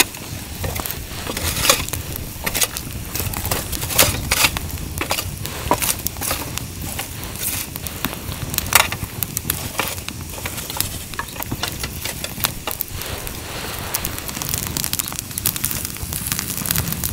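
Wood fire crackling, with irregular snaps and a few louder pops over a low steady rumble.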